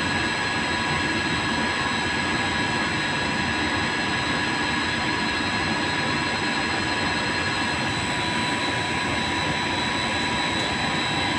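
TIG welding setup running: a steady hiss with several constant high-pitched whining tones, unchanging throughout.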